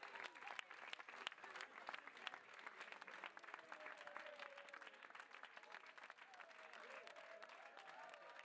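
Faint applause from a crowd of people clapping continuously, with a few voices calling out over it.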